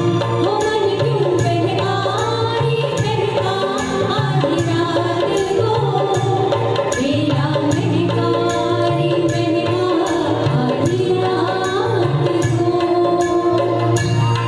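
Two women singing a duet into stage microphones over amplified music with drum accompaniment keeping a steady beat.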